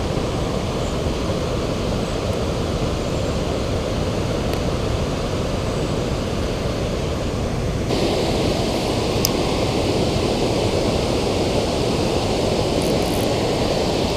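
Steady rush of river water pouring through and below a spillway, growing fuller and brighter about eight seconds in.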